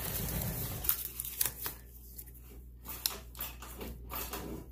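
Clear plastic packaging crinkling and rustling as unboxed parts are handled, loudest in the first second, then a scatter of short rustles and light taps.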